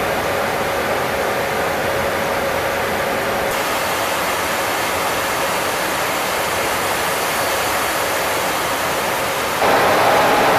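Steady engine and airflow noise inside an aircraft cabin in flight, with a faint steady hum. Near the end it jumps louder and the hum rises in pitch.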